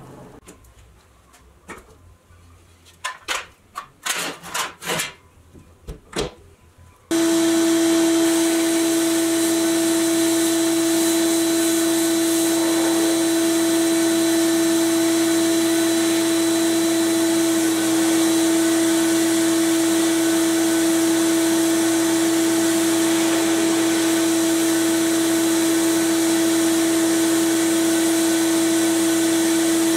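A few light knocks and rattles, then about seven seconds in an abrasive blast cabinet starts up abruptly: the air nozzle blasting media at the toy truck's rusty steel cab as a loud, steady hiss over a steady motor hum.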